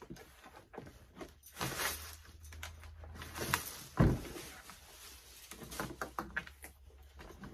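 Handling noises from unpacking a heavy heat press: plastic packaging rustling and crinkling, small knocks, and one dull thump about four seconds in.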